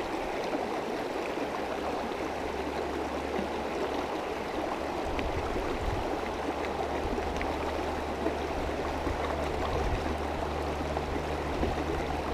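Mountain creek rushing steadily over rocks, a constant even wash of water noise.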